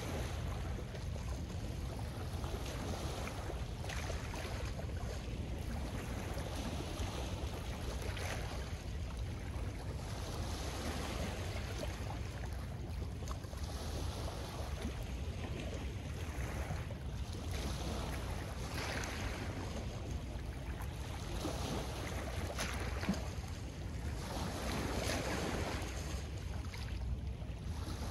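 Small lake waves washing onto a pebble shore, swelling and ebbing every few seconds, over a steady low rumble of wind on the microphone.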